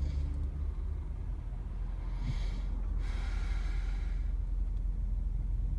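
Steady low rumble of a running car heard from inside the cabin. About two seconds in, a person draws a breath and lets it out in a long sigh.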